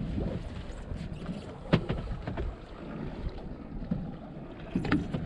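Wind buffeting the microphone aboard a small boat at sea, over the wash of open water, with a sharp knock about two seconds in and another near the end.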